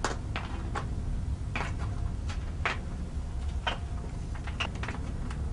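Irregular light clicks and knocks, a few with a brief metallic ring, over a steady low rumble: metal baseball bats knocking together as they are handled.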